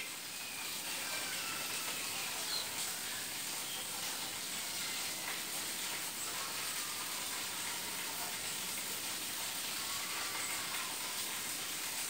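Steady low hiss of outdoor background noise, with a few faint, brief high tones.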